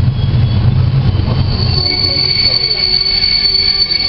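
PESA SA103 diesel railbus heard from inside. About a second and a half in, the low rumble of its engine falls away and a steady high-pitched squeal from its wheels sets in and holds. This is typical of the train slowing into a station.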